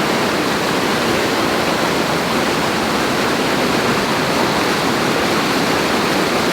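Rain-swollen woodland stream in flood, its water rushing loudly and steadily, as over a waterfall or weir.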